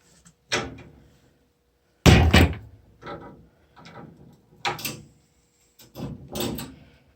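A series of knocks and clunks from wrenches being worked on a washing machine shut-off valve and its supply pipes. The loudest is a heavy clunk about two seconds in, followed by several lighter knocks.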